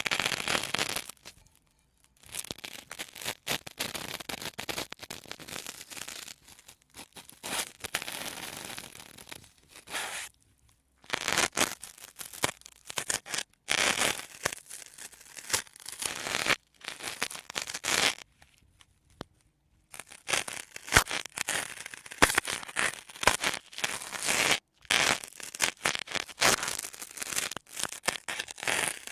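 Sponges squeezed and crushed right against the microphone. They give runs of dense crackling and scratching a few seconds long, broken by several short silent pauses.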